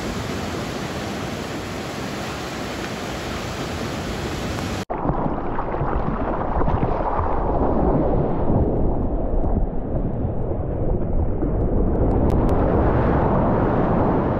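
Steady hiss of surf for about five seconds, then a sudden cut to rushing whitewater and wind buffeting a surfboard-mounted action camera's microphone as it rides a breaking wave.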